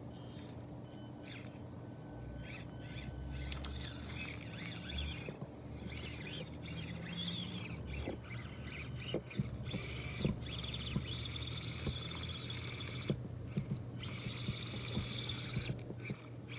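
Axial SCX24 1/24-scale RC crawler's small brushed motor and gears whining in stop-and-start stretches as it crawls over rocks, with scattered light clicks.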